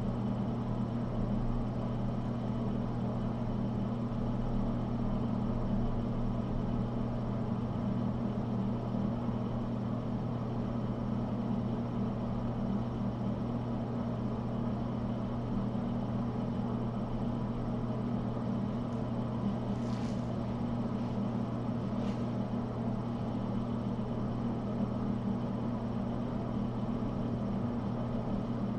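A steady low hum with no change, and two faint short clicks two seconds apart about two-thirds of the way through.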